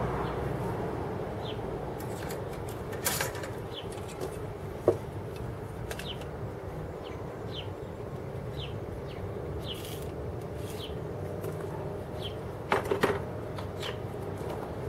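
Outdoor background noise with a small bird chirping over and over, short falling notes every half second to a second. A few short knocks and scrapes of hand tools on a stone block stand out, a sharp one about five seconds in and a quick cluster of them near the end.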